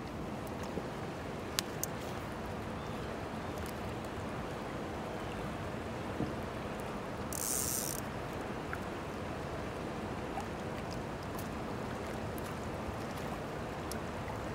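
Steady rush of spillway water running over the rocks, with a few small clicks and, just past the middle, a short high ratcheting buzz from a click-and-pawl fly reel as line is pulled off it.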